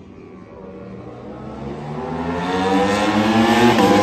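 Racing superbike accelerating up the straight toward the listener. Its engine note climbs in pitch and grows louder, with a quick gear change near the end.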